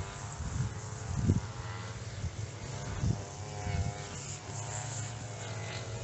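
A petrol strimmer engine drones steadily, its pitch wavering slightly. Gusty wind buffets the microphone with a low rumble.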